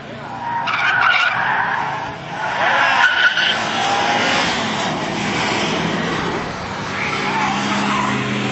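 Car tyres squealing as a car drifts through a corner on a race track, loudest about a second and three seconds in. After that an engine runs under load, its note slowly rising as the car accelerates.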